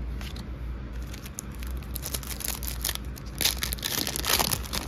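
Crinkling of a foil Pokémon 'Trick or Trade' booster pack wrapper being picked up and torn open, with the densest, loudest rips and crackles from about three and a half to four and a half seconds in.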